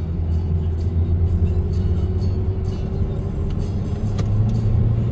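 Honda Civic FC's 1.8-litre four-cylinder engine pulling under throttle through an aftermarket exhaust, heard from inside the cabin. It is a steady low drone that steps up in pitch about four seconds in. The exhaust note stays smooth and not loud.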